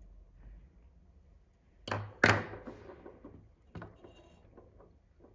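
Two sharp knocks close together about two seconds in, the second one louder, followed by a lighter knock a little later and a few faint taps.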